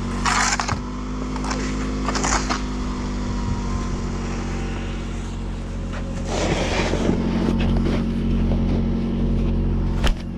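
An engine running steadily in the background, with several short scrapes of snow shovels over it, one longer scrape a little past the middle.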